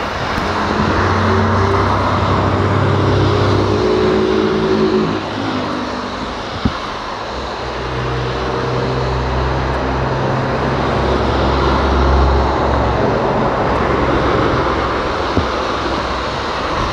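A steady low engine drone of the Airbus A330F jet engines, likely as it taxis, coming and going in two long stretches. It sits under a constant rushing noise of storm wind and rain.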